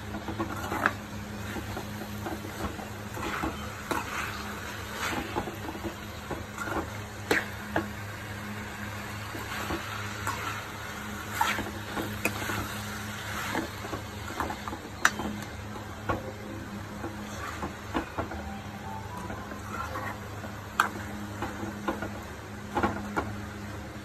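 A steel slotted spoon scraping and clinking irregularly against an aluminium pot while stirring prawns in a tomato and onion masala, which sizzles gently. A steady low hum runs underneath.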